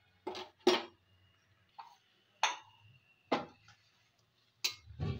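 Metal spoon clinking against a metal kadai while stirring vegetables, about six sharp knocks spread out, some of them leaving a brief metallic ring.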